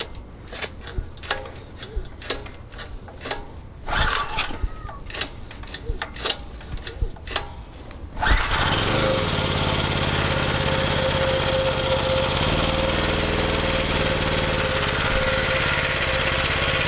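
Scattered clicks and knocks, then about eight seconds in an 87cc four-stroke generator engine starts with a knock and runs steadily on gasoline with the choke on.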